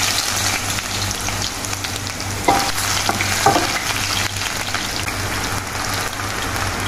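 Julienned ginger sizzling steadily in hot oil in a stainless steel pot as it is stirred, with two short knocks about two and a half and three and a half seconds in.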